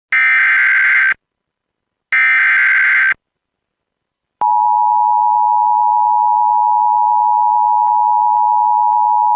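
Emergency Alert System SAME header: two bursts of digital data tones, each about a second long and a second apart. About a second later the steady two-tone EAS attention signal starts and holds through the rest.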